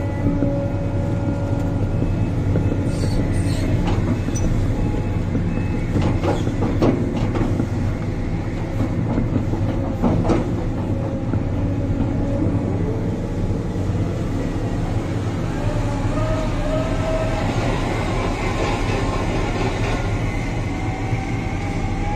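Sumitomo 490 excavator's diesel engine running steadily under digging load, heard inside the cab. Several sharp clanks and scrapes of the bucket biting into soil come in the first half, and a wavering hydraulic whine rises in the second half as the loaded boom lifts and swings.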